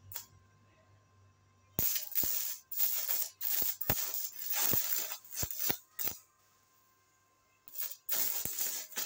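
Stick (MMA) arc welding with a small ARC 255 inverter welder turned down to low amperage: the arc crackles in short, broken bursts starting about two seconds in. It stops for about a second and a half a little after six seconds, then strikes up again.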